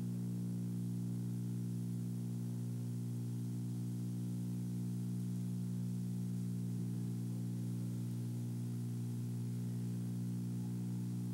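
A steady low buzzing hum with many overtones, unchanging in pitch and level, under a faint even hiss.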